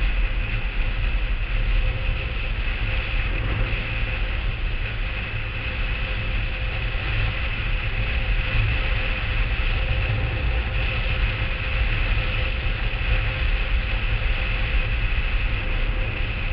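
Steady rush and low rumble of a blokart land yacht under way on a hard dry lakebed: wind buffeting the camera on the cart and its wheels rolling over the playa, with a faint steady whine above it.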